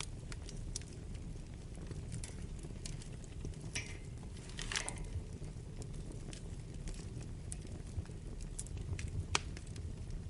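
Wood fire burning in a fireplace: a steady low rumble with scattered crackles and pops, a longer hissing crackle a little before halfway, and a sharp pop near the end.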